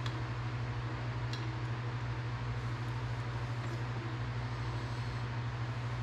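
Steady low electrical or machine hum of the workshop background, unchanging throughout, with a few faint light clicks of small metal parts being handled as the kicker pedal pieces are fitted.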